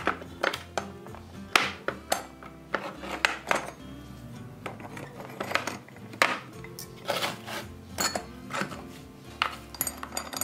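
Irregular sharp metal clinks and clanks of old iron chain links and brake irons being handled and worked with pliers, over background music.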